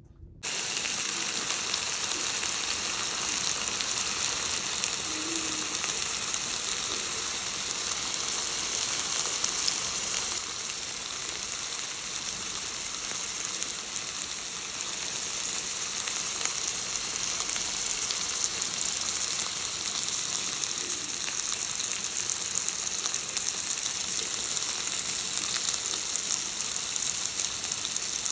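Chicken breast and potato slices sizzling as they fry in oil in a pan: a steady, dense crackle that starts abruptly about half a second in.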